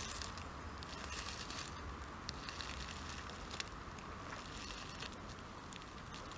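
Faint outdoor background hiss with a low hum and a few soft, scattered clicks.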